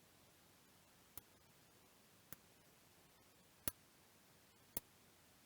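Four light, sharp clicks about a second apart against near silence: a small hand tool clicking against a freshly resoldered mini-USB connector as it is checked for firmness.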